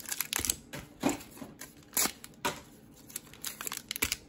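Foil-and-plastic Pokémon booster packs being handled: scattered crinkles and light clicks and taps as the packs are moved about and picked up.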